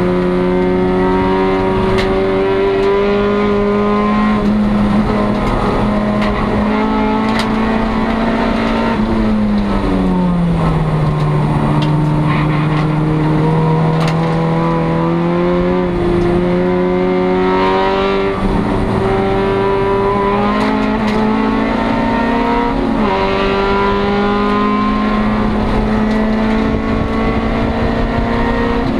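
Race-prepared 1996 Acura Integra's four-cylinder engine heard from inside the stripped cabin, running hard at high revs. Its pitch drops and holds lower for a few seconds about a third of the way in as it slows for a corner, then climbs again, with two brief dips later on.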